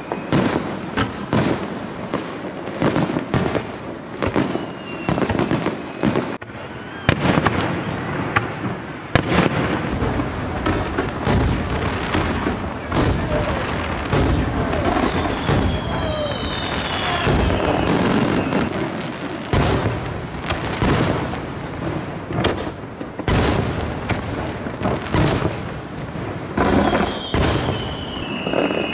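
Fireworks display: aerial shells bursting in quick succession, a dense run of sharp bangs and crackles, with a few whistles falling in pitch.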